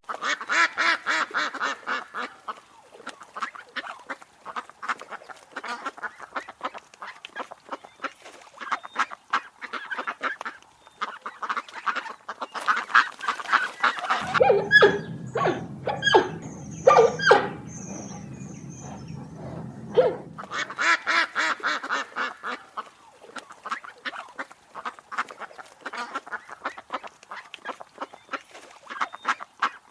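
A flock of geese honking, many calls overlapping in a rapid, dense chatter. About halfway through, a few separate, louder honks sound over a low steady hum.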